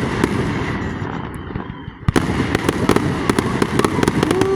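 Aerial fireworks crackling with rapid pops, thinning out about a second in. A sharp bang comes about two seconds in, followed by more crackling.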